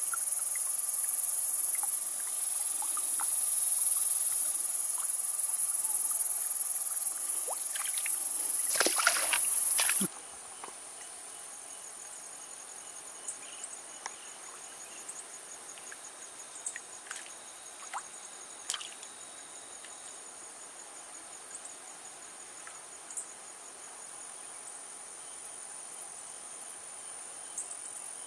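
Crickets and other insects singing in a loud, steady, shrill chorus that cuts off suddenly about ten seconds in, replaced by a quieter chorus with one cricket's fast, even chirping. A few short splashes or knocks just before the cut, and scattered faint ticks afterwards.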